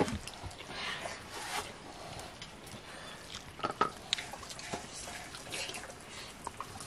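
Eating sounds: wet chewing and lip smacking as rice is eaten by hand, with small scrapes and clinks of fingers on steel plates.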